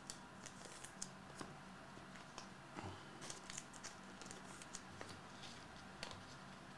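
Faint scattered clicks and light rustles of small objects being handled at a desk, over a low steady hum.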